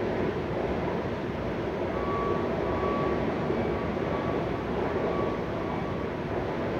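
Steady rumbling background noise like a distant engine or machine, with a faint high tone that comes and goes in the middle.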